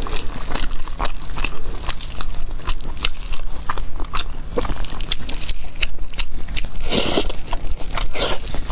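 Close-miked mukbang eating: a person chewing and biting food, with a dense run of sharp wet mouth clicks. Near the end come two louder, longer rushing sounds about a second apart.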